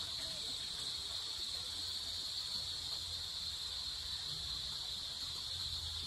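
A steady, unbroken high-pitched drone of insects such as crickets or cicadas, with a low rumble underneath.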